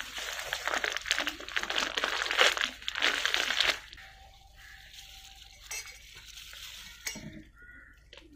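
Plastic grow bag of a mushroom block and a disposable plastic glove crinkling as they are handled, for about the first three and a half seconds. Then it goes much quieter, with a couple of small clicks.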